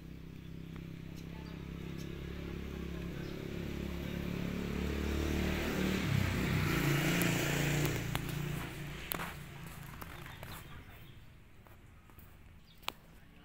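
A motor vehicle passing by: its engine hum swells, peaks with a drop in pitch about six to eight seconds in, then fades away. A sharp click near the end.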